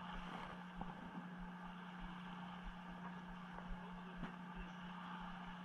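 Steady, even hum of a fishing boat's engine running, with a couple of faint knocks.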